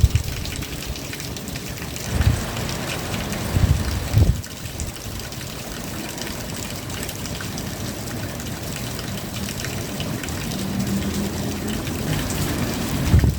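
Steady rain falling, an even hiss of drops, broken by brief low rumbles about two and four seconds in and again near the end.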